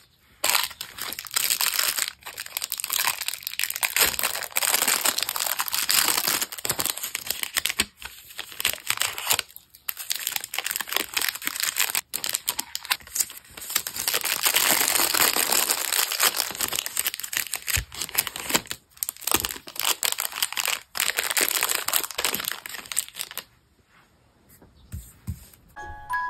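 Close, crisp crinkling and rustling of paper and sticker sheets as stickers are peeled and pressed onto a paper journal page, broken by a few short pauses. It turns much quieter for the last couple of seconds.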